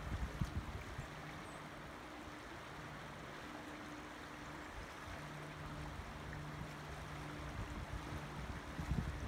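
Shallow creek running over rocks: a steady rush of water. There are low thumps near the start and again near the end, and a faint low hum comes and goes.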